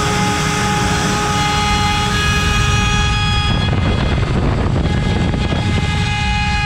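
CNC router spindle turning an 8 mm cutter at 24,000 rpm while milling wood, a steady tone with harsh cutting noise under it. From about halfway in, for around two seconds, the tone fades and the rougher cutting noise takes over, then the tone returns.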